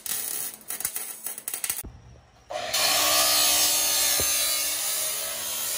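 Metalworking on a steel exhaust pipe: about two seconds of irregular crackling and clicks, a short pause, then a power tool running steadily with a high hiss.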